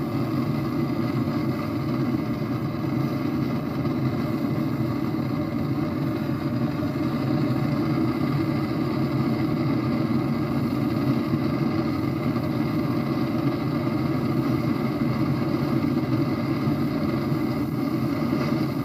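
Old gasoline blowtorch burning steadily, its burner giving off a constant deep rushing noise.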